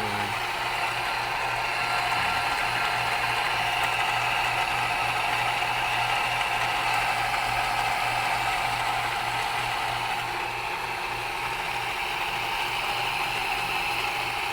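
Electric power tool spinning a homemade mini lathe chuck, running steadily with a continuous whine and a fast, even low pulse; there is a little vibration in the setup.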